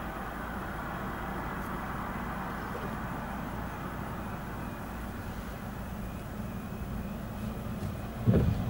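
Steady low rumble and hiss inside a stationary car's cabin, with a sudden heavy thump near the end.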